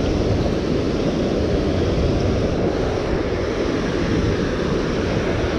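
Steady rush of river water flowing below a dam spillway, with a low rumble of wind on the microphone.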